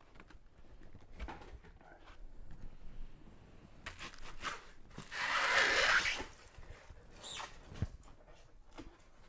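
Large foam packing blocks being handled and lifted off a plastic-wrapped machine: scattered rubbing, rustling and light knocks, with one louder scraping rustle about a second long in the middle.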